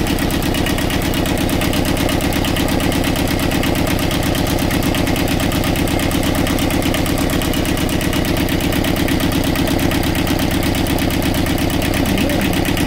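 Universal 5411 two-cylinder marine diesel idling steadily with a rapid, even diesel clatter.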